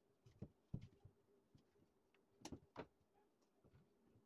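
Faint knocks of wooden blocks being set down and shifted on a table: about four short knocks, the loudest pair about two and a half seconds in, over a faint steady hum.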